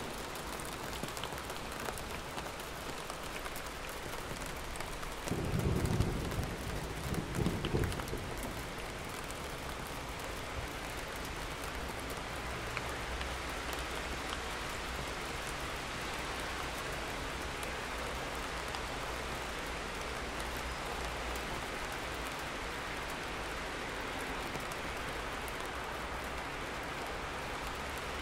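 Steady rain falling, with a deep rumble of thunder about five seconds in that is loudest for two or three seconds and then dies away into a faint low rumble.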